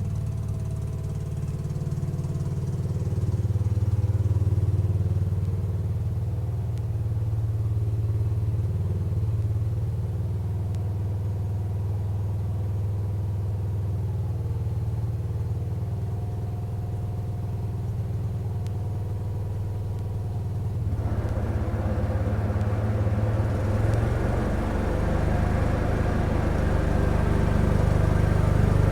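1975 Case 224 garden tractor's engine running steadily while it clears snow with its snow thrower. About two-thirds of the way through, a rougher, fuller noise joins the engine hum, and the sound grows a little louder toward the end.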